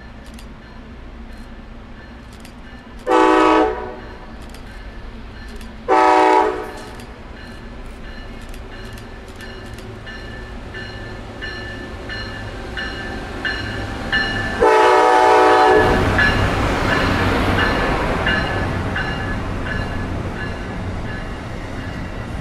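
Train horn sounding two short blasts and then a longer one, followed by the train passing, its rushing noise swelling after the last blast and slowly easing off, with regular wheel clicks on the rails.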